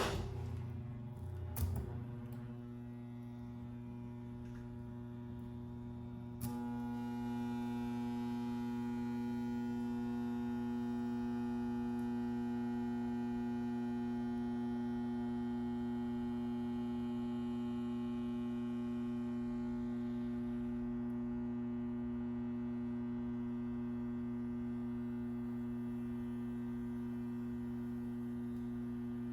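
Ventisilva VCL fan's single-phase capacitor motor humming steadily on mains power while it is being deliberately burned out, its coils already partly burnt from a 10 µF capacitor fitted in place of the original 4 µF. There are a couple of clicks in the first two seconds, and the hum gets louder about six seconds in.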